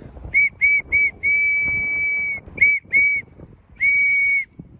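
Hand-carved sycamore stick whistle blown in a pattern on one high, steady note: three short toots, a long blast of about a second, two short toots, then a second long blast.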